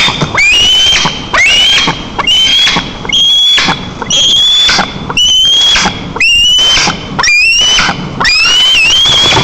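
Juvenile white-tailed eagle screaming over and over, about one call a second. Each call sweeps sharply upward and then holds a high, piercing note for most of a second, very loud at the nest: the insistent calling of a fledgling eaglet.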